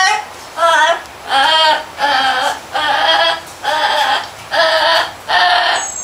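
Blue-fronted Amazon parrot singing: a run of about eight short, high sung notes, roughly one every three-quarters of a second.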